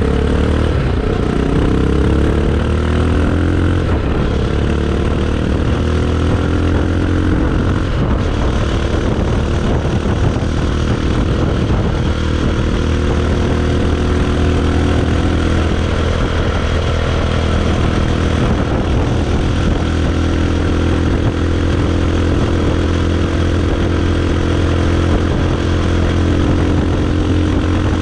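Bajaj Pulsar 220 motorcycle's single-cylinder four-stroke engine running through its exhaust. The revs fall away over the first few seconds and then settle to a steady idle.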